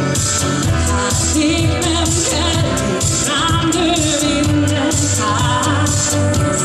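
Female pop singer singing live into a handheld microphone over an amplified backing track with a steady dance beat.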